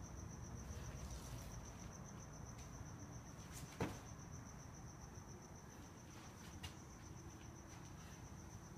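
A steady, fast-pulsing high-pitched tone over faint room noise, with a single thud about four seconds in from a foot landing on the floor.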